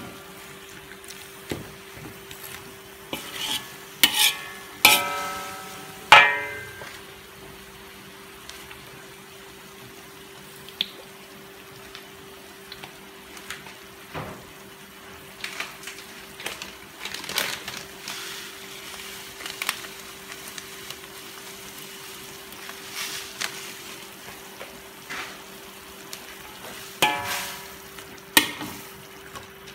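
Metal spoon stirring ground meat in an aluminium wok: irregular scrapes and clanks against the pan, the louder strikes making the wok ring briefly, most around four to six seconds in and again near the end. A low frying sizzle and a steady hum run underneath.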